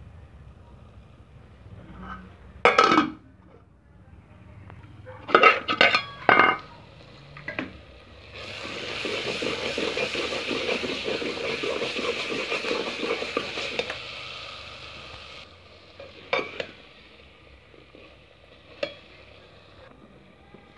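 Metal spoon in a metal pot of pea-and-potato curry. First a few sharp clanks against the pot, then about seven seconds of steady stirring and scraping through the wet curry. Two more single clinks come near the end.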